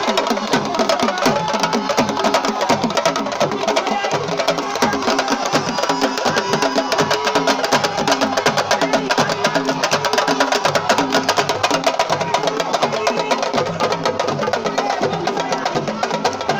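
Fast, dense hand-drum percussion playing a steady driving rhythm without a break.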